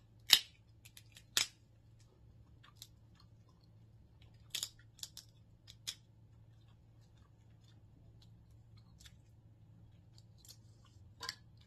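Crab leg shells cracked and snapped apart by hand: a loud sharp crack about half a second in, another a second later, a quick run of smaller snaps around five seconds in, and one more near the end, with small crunching clicks between.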